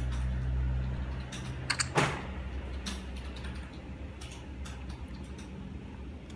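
Handling noise from a phone held by hand over a desk: scattered light clicks and taps, with one louder knock about two seconds in, over a low steady hum.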